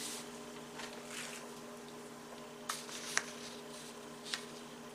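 Sheets of paper being handled and swapped: a few soft rustles, then three short sharp crinkles or taps, over a faint steady electrical hum.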